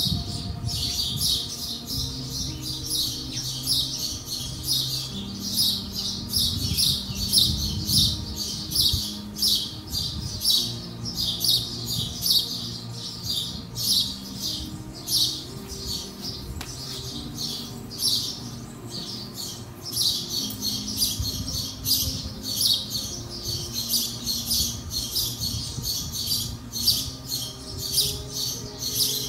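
Many small birds chirping rapidly and without pause, over soft music of slow, held low notes that change every second or two.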